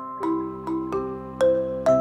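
Intro music: a melody of struck notes that ring on, about two or three a second, with a steady low tone underneath.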